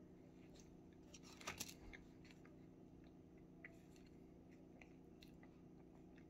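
Near silence over a steady low hum, with faint chewing of an MRE muffin and light crinkling of a brown MRE pouch being handled. A short cluster of crackles about a second and a half in is the loudest moment.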